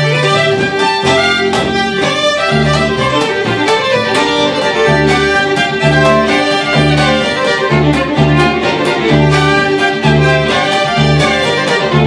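Two fiddles playing a folk tune together over an upright double bass, which is plucked and keeps a steady, pulsing beat.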